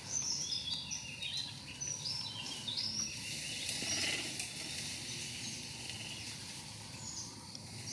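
Forest birds singing, a run of short, high chirping notes in the first few seconds, over a steady background hiss of outdoor ambience.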